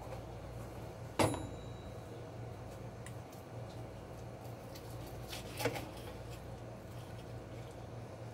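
Knife and fork cutting cooked pot roast in a skillet: light scraping and faint ticks, with a sharp clack of dishes about a second in and a smaller one past the middle, over a steady low hum.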